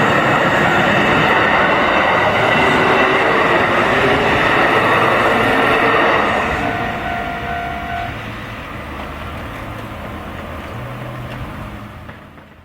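Kintetsu Osaka Line train passing over a level crossing, loud for the first half, then dropping and fading away.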